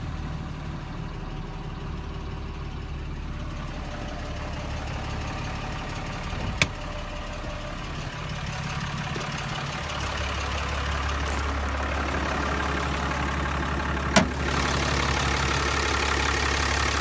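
2013 Ram 3500's 6.7 L Cummins inline-six turbodiesel idling steadily soon after a start from cold, the truck having sat for a couple of days. From about ten seconds in it is louder and closer. Two sharp knocks, about six and fourteen seconds in.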